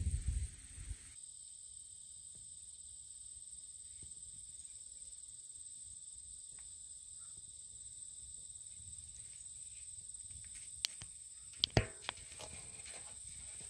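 Steady high-pitched trilling of insects, with a few sharp clicks near the end.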